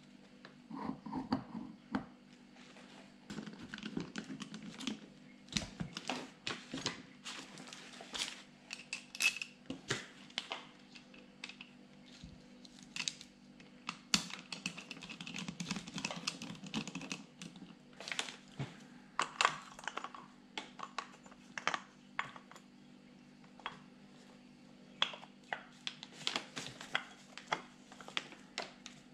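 Metal parts of a Peugeot/Citroën HDi 136 starter motor being handled and fitted back together by hand: an irregular run of light clicks, taps and clinks.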